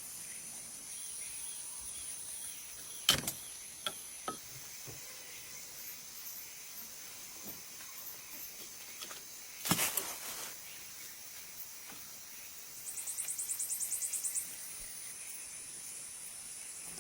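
Insects in the jungle chirring in steady high-pitched tones, with a rapid pulsing insect trill for about a second and a half near the end. A few sharp knocks or cracks stand out above them, a cluster of three just after three seconds in and one more loud one near ten seconds.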